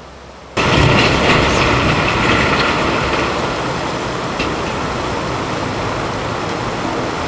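A dump truck tipping a load of rock and boulders out of its raised bed, the rock tumbling and rattling onto a pile, over the truck's engine running. It starts suddenly about half a second in and eases slowly.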